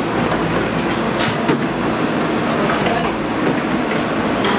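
A JCB earthmover's diesel engine running under work, with a few sharp metallic clanks over the steady rumble.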